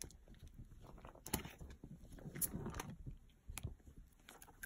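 Hands opening a cardboard children's board book and flipping its stiff pages: a few faint taps and rustles.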